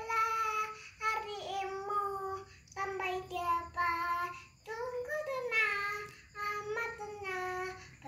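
A young girl singing, holding and bending notes in about five short phrases with brief breaks between them.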